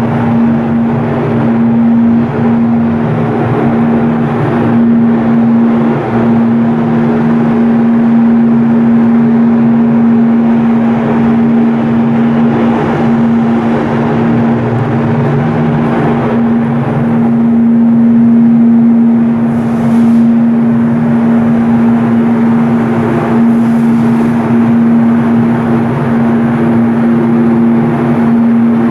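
Ship's diesel engine running steadily: a loud, continuous machinery drone with a strong, steady hum.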